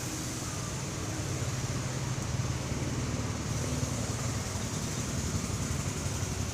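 Steady low hum of an idling engine, with an even hiss above it.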